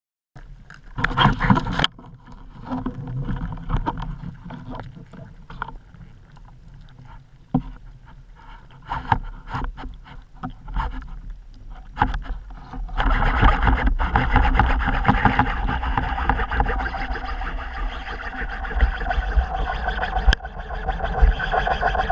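Underwater sound picked up through a camera's waterproof housing: a short loud burst about a second in, then scattered knocks and clicks over a low rumble. About halfway through, a steady rush of water noise sets in as the camera moves through the water.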